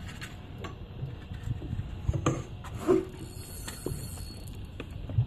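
Small fishing reel being wound in while a fish is played, with scattered irregular clicks and handling knocks over a low rumble; a few louder knocks come between about two and three seconds in.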